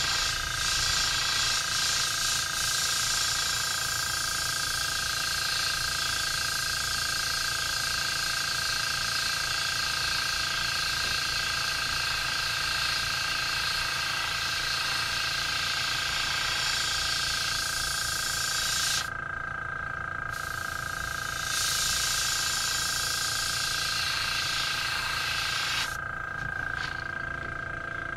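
Iwata gravity-feed airbrush spraying paint: a steady hiss of air that cuts out about 19 seconds in, starts again a couple of seconds later, and stops about 26 seconds in. A constant thin whine runs underneath.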